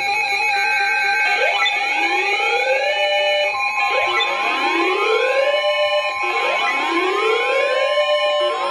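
Electronic emergency alert tone: a whoop-style alarm whose rising sweeps repeat about every one and a half seconds over steady held tones. A further steady tone joins about three and a half seconds in.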